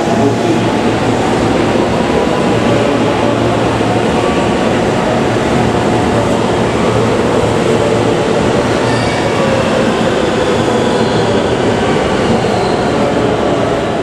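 JR West 223 series electric train running past along the platform: a steady, loud rumble of wheels on rail and running gear, with a faint motor whine.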